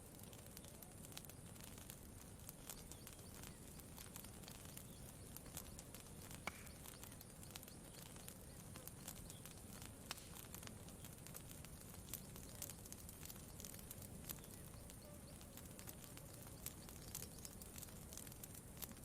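Campfire crackling softly, with scattered sharp pops at irregular intervals over a low, steady background.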